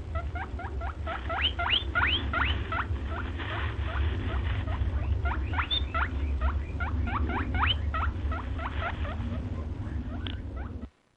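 Pet guinea pig squeaking over and over, short quick rising squeaks about three or four a second, over a steady low hum. The sound stops abruptly near the end.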